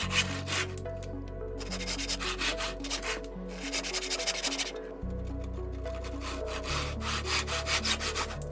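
Hand saw crosscutting a strip of cherry wood with rhythmic back-and-forth strokes, in several runs with short pauses between them.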